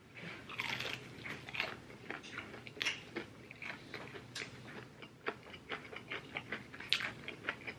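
A person chewing fried chicken with the mouth open and closed: a run of irregular smacks and small crunches, several a second.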